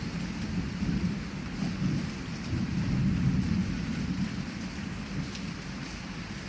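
Heavy rain falling steadily, with a low rolling rumble of thunder that swells in the middle and fades toward the end.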